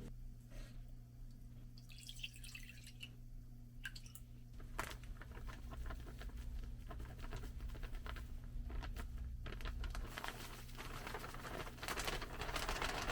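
Scattered small clicks and handling noises over a steady low hum, with a longer stretch of hissing noise near the end.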